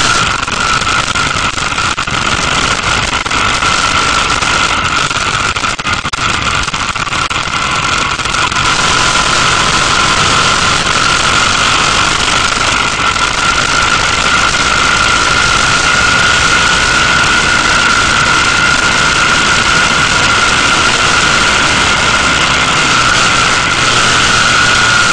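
Motorcycle engine running at a steady cruise with wind rushing over the microphone, carrying a steady high whine; it gets a little louder about a third of the way in.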